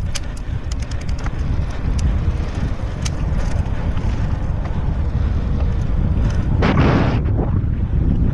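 Wind noise on the microphone of a camera riding a Trek Marlin 6 mountain bike rolling along a paved path, a steady low rumble. There are light clicks and rattles from the bike in the first few seconds, and a louder rush of noise about two-thirds of the way through.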